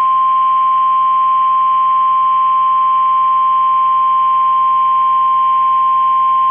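NOAA Weather Radio's 1050 Hz warning alarm tone: one loud, steady tone held unbroken, with a faint low hum beneath it. It is the attention signal that sets off alert receivers ahead of a weather alert message.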